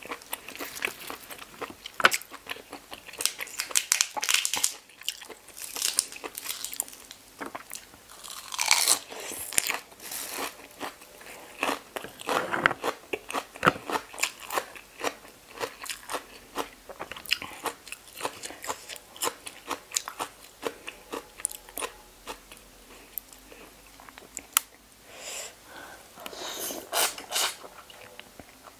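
Close-up eating sounds of razor clams being bitten and chewed: rapid crunchy, clicky chewing with a few longer wet slurps.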